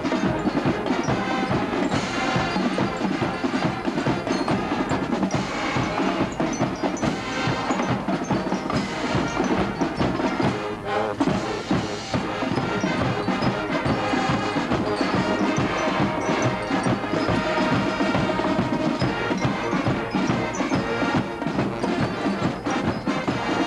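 High school marching band playing a lively tune: sousaphones and horns over a steady drum beat, with no break.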